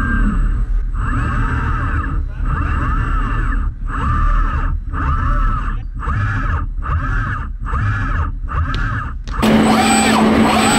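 Motion-control camera robot arm's servo motors whining, the pitch rising and falling with each quick move, the moves separated by short pauses that come faster toward the end, over a steady low hum. Near the end a louder, denser run of machine sound with a steady tone sets in.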